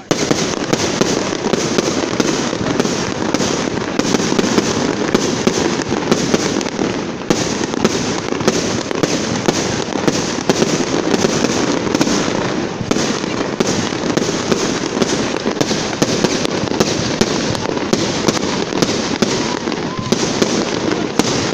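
Aerial fireworks going off in a dense, continuous barrage: many loud bangs a second blending into crackling, with no pause.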